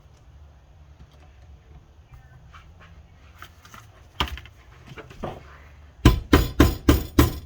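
A few light metal clinks, then from near the end a steady run of sharp strikes about three a second: a hammer or mallet tapping a Honda Civic transmission case half down to seat it on the case.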